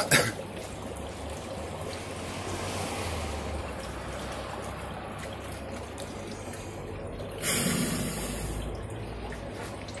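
Dry ice bubbling and fizzing in water, a steady churning hiss, with a louder rush about seven and a half seconds in.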